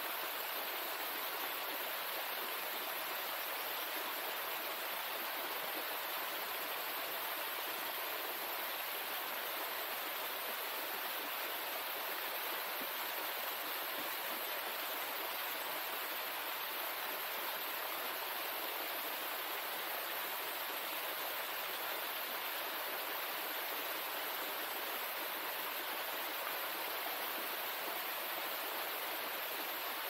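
Steady rush of a small waterfall splashing into a rocky pool: an even, unbroken hiss of falling water.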